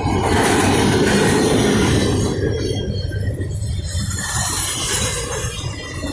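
Double-stack intermodal well cars rolling past on steel rails: a steady rumble of wheels and trucks with a hissing rush over it. It is loudest for the first two seconds or so, then eases a little.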